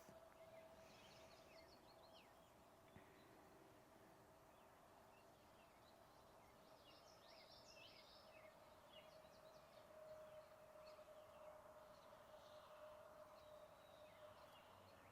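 Near silence: faint, distant bird chirps come and go in short clusters over a steady faint hum.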